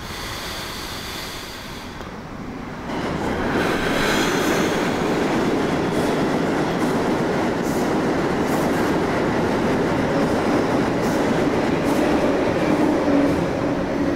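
Subway train running on the rails: a loud, steady rumble that swells up about three seconds in, with a brief high whine near its start and scattered clicks from the wheels.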